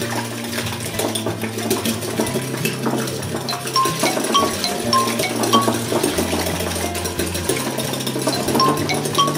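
Light background music with short bell-like notes over a stepping bass line, and a wire whisk clicking rapidly against a glass bowl as raw eggs are beaten by hand.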